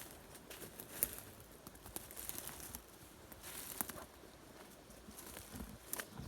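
Footsteps through swamp brush: light scattered crackles and rustles of twigs and vegetation underfoot, with a sharper snap about a second in.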